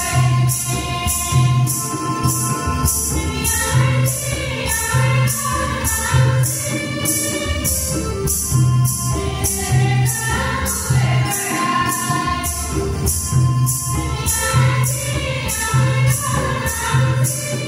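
Choir and congregation singing a hymn with instrumental accompaniment and a steady beat.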